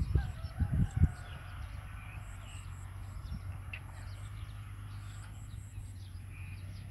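Rural outdoor ambience: faint, scattered bird chirps over a steady low rumble, with a few low thumps on the microphone in the first second.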